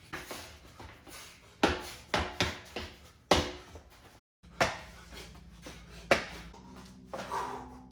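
Irregular sharp knocks and thuds, about six strong ones, from a person performing a Hung Gar double butterfly knife form, with a brief dropout to silence about halfway.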